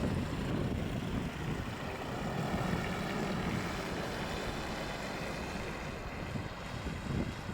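Wind buffeting the microphone over a steady low rumble of aircraft engines at the airport.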